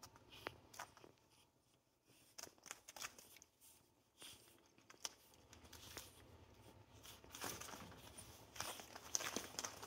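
Faint scuffling and light clicks of two pug puppies tussling on a floor mat, their paws scratching and scrabbling as they play; the scuffling gets busier and louder over the last few seconds.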